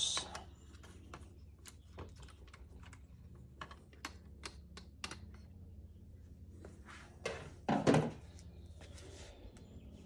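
Scattered light clicks and taps of hands and a tool working on the plastic distribution-box cover of a Begode EX20S electric unicycle as it is opened. A louder knock and clatter comes near the end.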